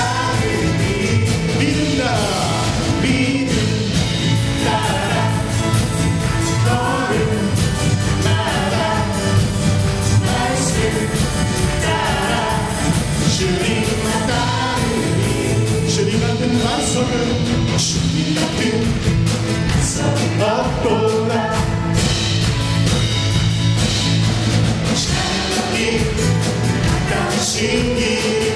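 A live church worship band playing a Korean praise song: several voices singing together into microphones over a band with bass and a steady beat.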